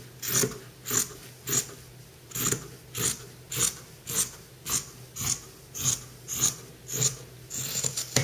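Scissors cutting across a thick terry-cloth hand towel in steady, repeated snips, about two a second.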